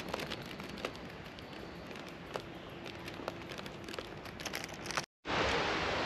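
Background noise scattered with light clicks and a faint steady hum. About five seconds in it cuts out for an instant and gives way to a louder, even rush of noise.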